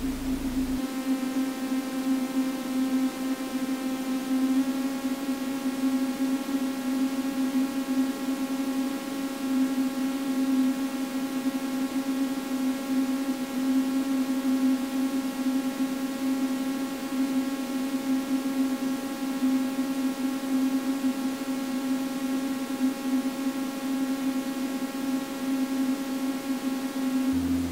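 Electronic drone: a steady, noisy low hum with a chord of high held tones above it. The tones come in about a second in, shift slightly a few seconds later and stop near the end.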